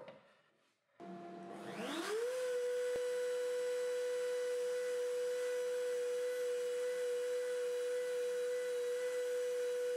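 Router in a router table, fitted with a slot-cutter bit, switched on about a second in: it spins up with a rising whine and then runs steadily at full speed with a high, even whine.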